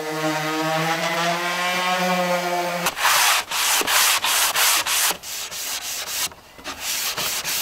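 An electric random orbital sander runs on a wooden cabinet door with a steady hum. About three seconds in, this gives way to hand sanding: sandpaper rasping along the door's edges in quick strokes, about four a second, softening the sharp corners.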